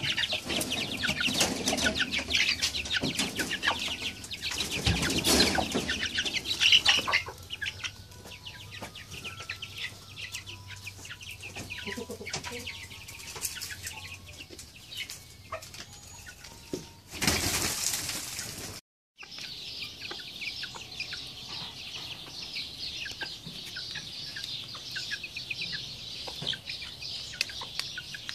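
A hen clucking while her chicks peep, with wing flapping and scuffling in the first several seconds. A brief loud rush of noise comes about two thirds of the way through, then the chicks' high peeping runs on as a steady chatter.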